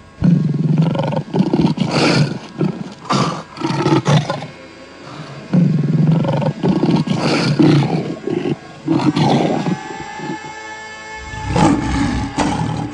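Lions roaring again and again in loud bursts. Sustained music tones come in about nine seconds in, under one more roar near the end.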